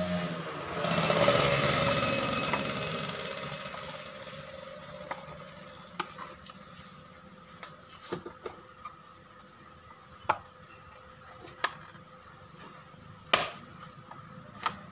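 Plastic body panels of a scooter being handled and pushed back into place: a scraping, rubbing noise starting about a second in and fading over a few seconds, then about six sharp plastic clicks and knocks a second or two apart.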